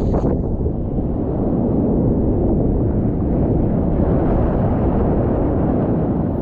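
Strong wind rumbling on the microphone over heavy surf, a loud steady low roar.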